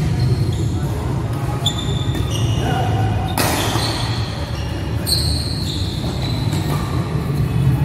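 Badminton doubles rally: court shoes squeaking on the indoor court floor in many short high squeals, with a sharp racket strike on the shuttlecock a little past three seconds in, over a steady low hum.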